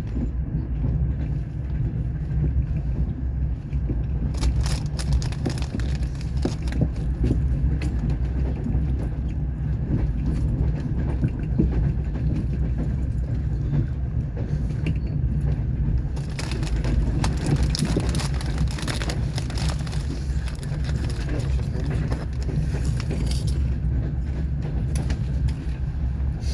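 A moving passenger train heard from inside the carriage: a steady low rumble with rattling and clicks of wheels and fittings, busier from about sixteen seconds in to about twenty-three.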